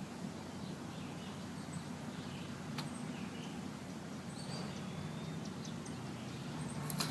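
Quiet outdoor background with faint bird chirps and a single light click about three seconds in.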